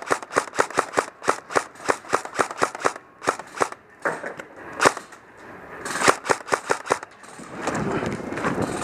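Airsoft guns firing a rapid string of sharp pops, about six or seven a second for the first three seconds. Then come scattered single shots and another quick burst about six seconds in, followed by rustling movement near the end.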